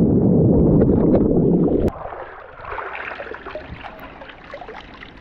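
Muffled underwater rumble and bubbling of sea water churning around a submerged action camera just after a jump in, dropping off abruptly about two seconds in. After that, lighter water sloshing and dripping with small splashes around a metal ladder at the surface.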